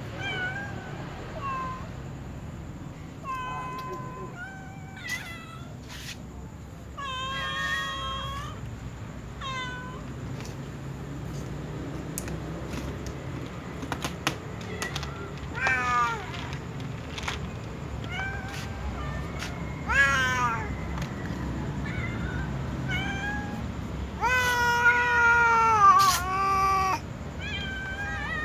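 A tom cat and a white cat meowing over and over, asking to be fed: a string of separate meows, several falling in pitch, the longest and loudest near the end.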